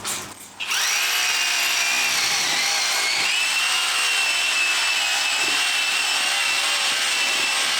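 An electric drill motor runs steadily under load from about a second in, with a high whine that steps up slightly in pitch about three seconds in.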